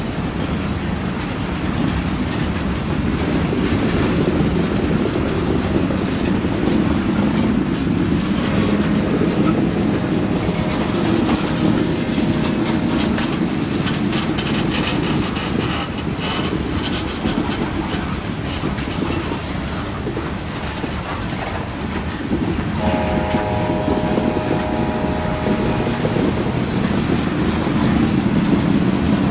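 Freight cars of a passing train rolling by close at hand: a steady, loud rumble and clatter of steel wheels on the rails. A thin steady tone sounds for a few seconds midway. Near the end a fuller chord of tones is held for about three seconds.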